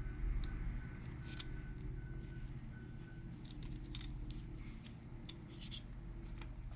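Small tools clicking and tapping on a phone during a screen repair, over a steady low electrical hum. A short electronic beep repeats about every two-thirds of a second and stops about three seconds in, and there is a low thump at the start.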